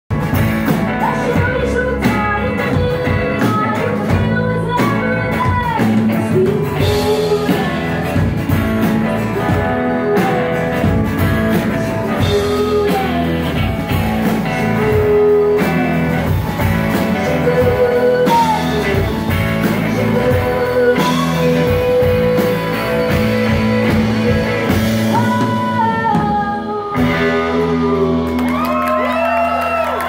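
Live band performance: a woman singing lead over her strummed acoustic guitar, backed by a drum kit. Near the end the singing stops and the song closes on a ringing chord.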